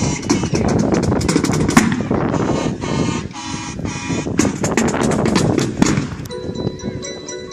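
Juvenile jazz marching band playing: a dense run of rapid snare and bass drum strikes under the band's melody, then about six seconds in the drumming drops away, leaving held notes and glockenspiel chimes.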